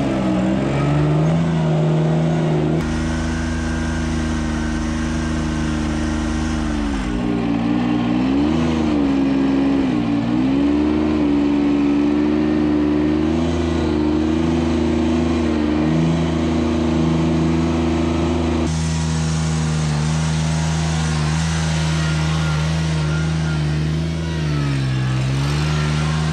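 Heavy equipment's diesel engine running steadily at working speed, its pitch sagging and recovering a few times as the load on it changes.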